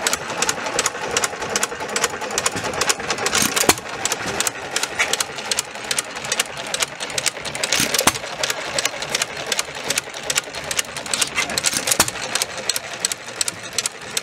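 Small antique stationary gas engines running, with a fast mechanical clatter and clicking from their valve gear and flywheels. A few louder bangs come about four seconds apart.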